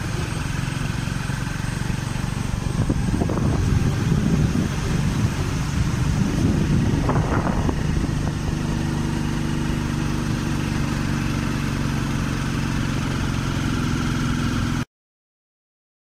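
Steady engine and road noise from a vehicle driving along a road, with louder rushing stretches early on and a steadier hum later. It cuts off abruptly to silence just before the end.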